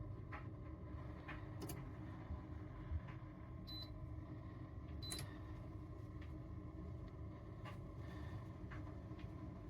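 Two short high electronic beeps about a second and a half apart, the touch controls of a ceramic hob responding to presses, over a low steady hum and a few faint clicks.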